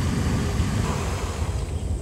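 Steady low rumbling noise, with a fainter hiss above it that thins out near the end.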